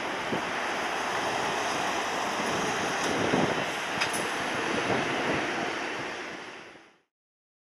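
Twin-engine jet airliner's engines running at takeoff thrust as it lifts off and climbs away: a steady, loud roar with some wind rumble on the microphone. It fades out quickly near the end.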